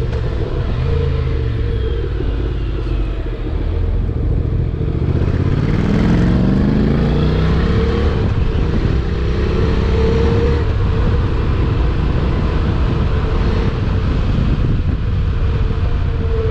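Honda NC750X's parallel-twin engine running under way on the road. The engine note climbs in pitch about five seconds in as the bike accelerates.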